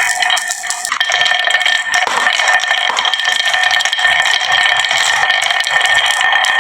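Many marbles rolling and clattering down a toy marble run, a continuous dense rattle of small clicks.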